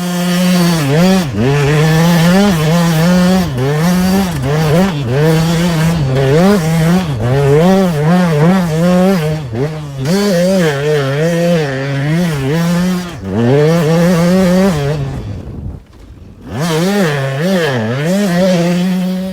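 KTM 200 SX single-cylinder two-stroke dirt bike engine revving hard and dropping back over and over, the pitch swinging up and down as the throttle is worked over a run of whoops. About three-quarters through the engine note falls away briefly, then picks up again.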